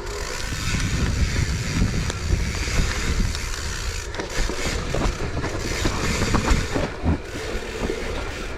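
Mountain bike rolling down a steep dirt and rock trail: tyre noise over the ground, with the bike rattling and scattered knocks from the rough surface.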